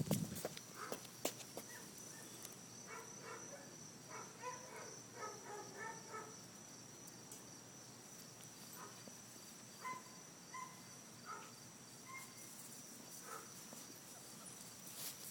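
Faint, steady high-pitched insect chorus in the background. A few brief, faint pitched calls come a few seconds in and again around the middle.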